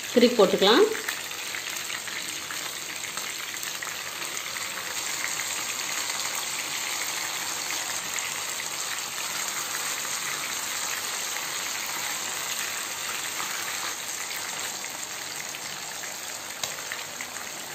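Masala-coated quail pieces shallow-frying in hot oil in a nonstick pan: a steady sizzle of bubbling oil that eases off slightly near the end.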